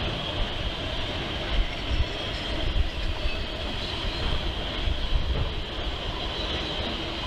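Autorack freight cars rolling past on the rails: a steady low rumble of steel wheels on track, broken by irregular clunks and knocks as the wheels pass over the rail.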